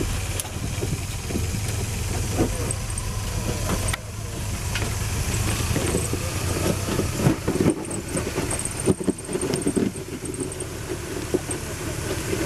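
Off-road 4x4's engine running at low speed as it crawls up and over a steep rock ledge, with rocks knocking and crunching under the tyres, most of all in the second half.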